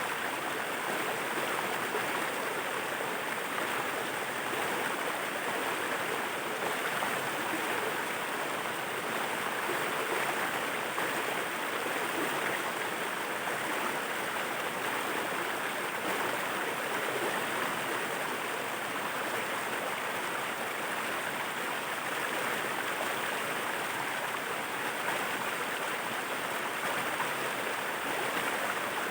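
Waterfall water rushing steadily, an even, unbroken hiss with no pauses or changes.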